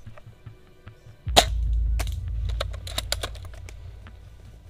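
Edited intro soundtrack: a sudden deep boom about a second in that slowly fades, with two sharp gunshot-like cracks and then a quick run of fainter clicks.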